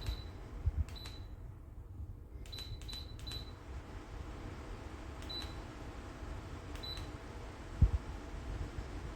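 About seven short high beeps, each with a click, at uneven intervals, typical of a smart table fan's controls acknowledging button or remote presses, over a steady low rumble. A single low thump comes near the end.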